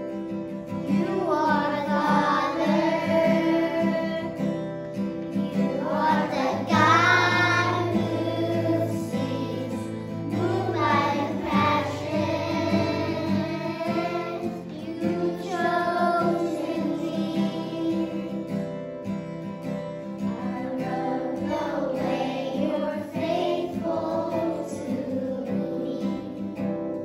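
A children's choir singing a song together, accompanied by guitar.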